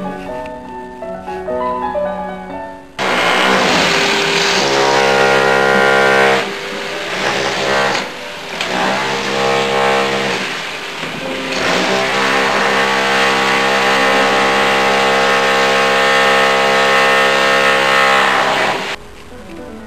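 Background music: a few quieter notes, then loud sustained chords over a noisy wash that begin abruptly about three seconds in and drop away near the end.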